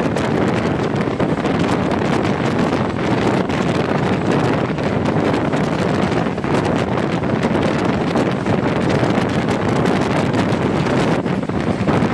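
Wind buffeting the microphone held out of a moving passenger train's window, over the steady running rumble of the coach on the track.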